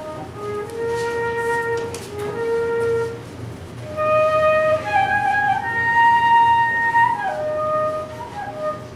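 Solo flute playing a slow melody of long held notes in two phrases; the second phrase is louder, climbs to its highest notes in the middle, then falls.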